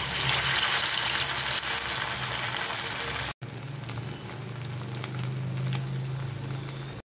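Balls of spiced grated paneer deep-frying in hot vegetable oil in a kadai: a dense, crackling sizzle. It is loudest in the first second or so as they go into the oil, then settles a little quieter. It cuts out for an instant about three and a half seconds in.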